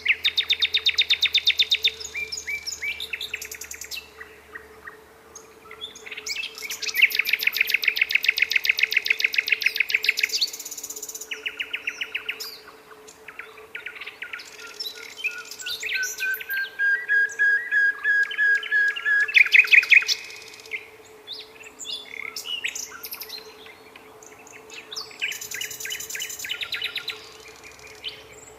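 Nightingale singing: loud phrases of rapidly repeated notes and trills, separated by short pauses, with a slow rising whistle that swells into a fast rattle near the middle. A faint steady hum runs underneath.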